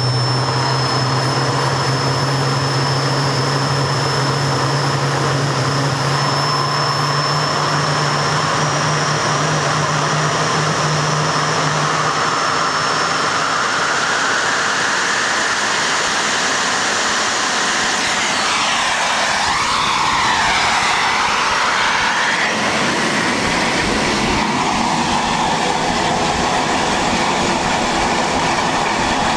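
TS-21 turbostarter, a small gas turbine run as a jet engine, running continuously: a loud exhaust rush with a high turbine whine that slowly rises in pitch in the first half. A little past the middle the sound wavers for a few seconds.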